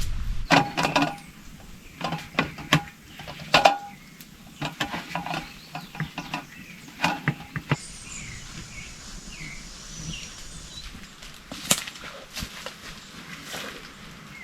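A series of sharp knocks and clinks, some briefly ringing, in the first half, then birds chirping against a faint high hiss.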